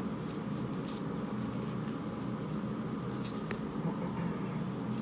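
Trading cards being handled and stacked, giving a few faint light taps, over a steady low hum.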